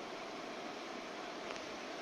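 Steady rushing noise of a Yamaha 40 water-jet outboard boat under way on a river, motor, water and wind blending into one even sound.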